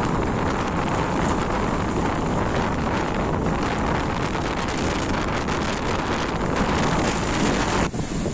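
Gale-force storm wind buffeting the microphone in heavy gusts, over a rough sea with waves breaking on the shore. The noise briefly drops near the end.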